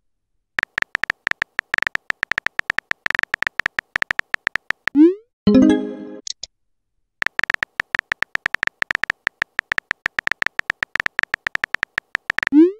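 Texting-app sound effects: rapid synthetic keyboard-tapping clicks as a message is typed, broken about five seconds in by a short rising swoosh and a bright blip as the message sends, then a second run of typing clicks ending in another rising swoosh.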